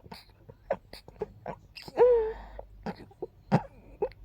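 A woman's gentle, breathy sneeze: a short voiced, high-pitched 'ah' about two seconds in is the loudest part. Quick sharp breaths and sniffs come before and after it.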